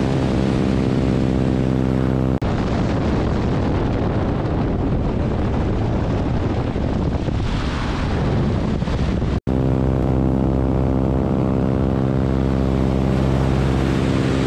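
A biplane's radial engine and propeller droning steadily in flight, with wind rushing over the microphone. From about two seconds in to about nine seconds, the engine tone falls back and the wind rush takes over; then the engine drone returns.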